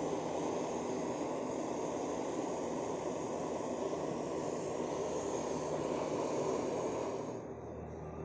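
Handheld butane torch burning with a steady rushing hiss as its flame melts a hollow into a block of ice in a stainless steel pot. The hiss gets quieter about seven seconds in.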